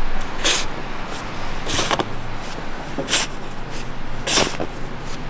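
Snow shovel scraping along a sidewalk as it pushes snow, four scrapes about a second and a quarter apart.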